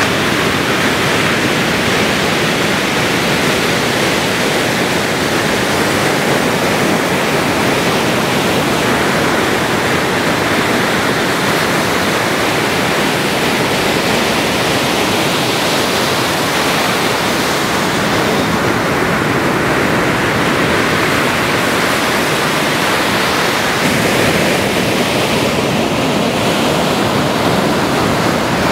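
Steady, loud rushing of ocean surf, an even wash of breaking-wave noise with no distinct individual waves standing out.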